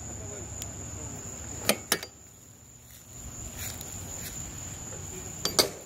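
Steady high-pitched buzz of insects in the grass, with a few sharp clicks: two about a second and a half in and two more near the end.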